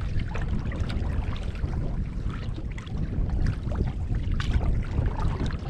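Wind rumbling on the microphone over open water, with irregular small splashes and lapping of water around a canoe on a rainy, windy lake.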